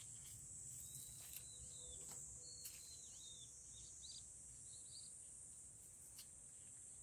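Faint, steady high-pitched insect chorus, with a few short bird chirps from about one to five seconds in and occasional faint clicks.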